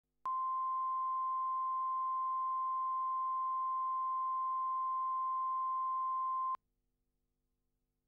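Broadcast line-up test tone that accompanies colour bars at the head of a tape: one steady pure tone at 1 kHz, starting just after the beginning and cutting off suddenly about six and a half seconds in.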